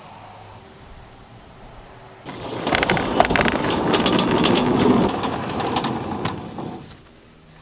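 Large wooden barn door sliding open on its track, a loud rumbling rattle with many clicks that starts about two seconds in and dies away near the end.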